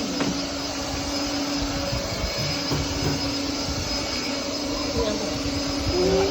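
Philips SpeedPro Max Aqua cordless stick vacuum running steadily: a constant motor hum under a rush of air. A short rising pitched sound comes near the end.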